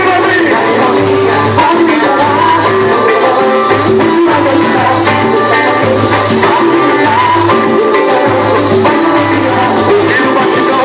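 Pagode band playing live: a steady samba rhythm with shaker percussion, bass and pitched instruments.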